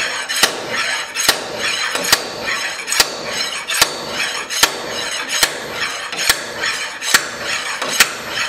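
Heavy slide hammer, about ten pounds, being worked on a blind pivot pin of a forklift tilt cylinder: the steel weight scrapes along the shaft and slams into the end stop roughly once every 0.85 s, about ten metal strikes in all. Each blow pulls on the pin to draw it out.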